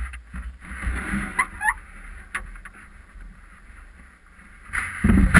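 Handling noise from a camera fixed on a stand-up paddleboard as the board is moved about on the ground: low rumble, rubbing and knocks, with two short squeaks about a second and a half in. A loud scrape or knock comes near the end.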